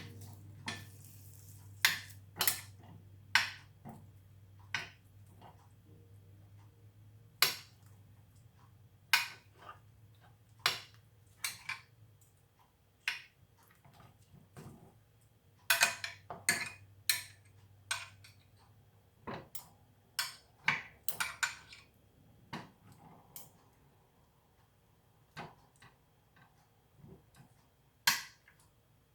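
Kitchen utensils clinking and knocking against a pan and dish in irregular sharp clicks while more glaze is put on chicken pieces. A low steady hum underneath stops about two-thirds of the way through.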